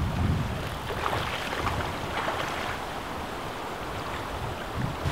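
Water of a shallow stream running, with irregular splashes from someone wading through it.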